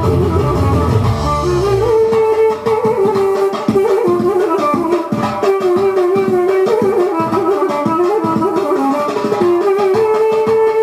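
Folk dance music with a quick plucked-string melody over a steady drum beat. A deep bass part drops out about two seconds in.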